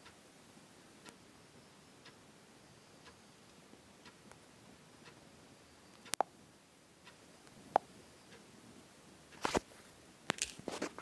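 Faint ticking about once a second, with a few sharper clicks and taps in the second half.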